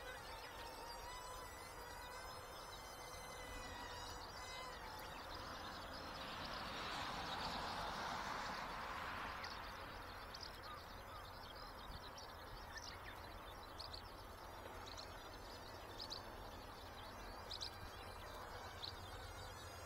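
Faint high buzzing whine of the model airliner's electric motor, fading out within the first couple of seconds. After it comes a broad rushing hiss that swells and fades midway, then scattered faint clicks and chirps.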